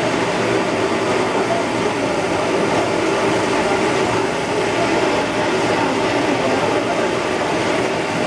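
Piyaju (onion fritters) deep-frying in a large wok of hot oil: a steady, dense sizzle of bubbling oil.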